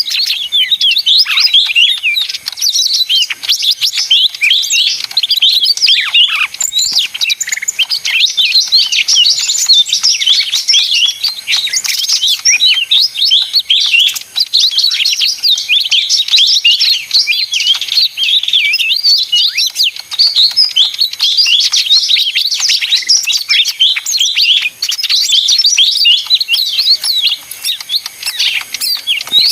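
Cucak ijo mini leafbird singing a fast, unbroken chattering song of high chirps and whistles.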